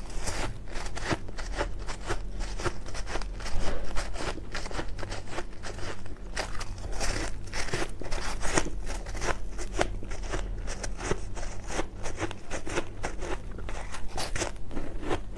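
Crunching and crackling of a clump of compacted powdery ice (so-called carbonated ice) being bitten and chewed: a rapid, continuous run of crisp crunches, with one louder bite about four seconds in.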